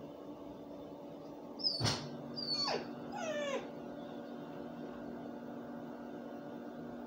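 Dog whimpering: a sharp high yip about two seconds in, a second falling whine right after, then a run of short whines that each slide down in pitch, over a steady low hum.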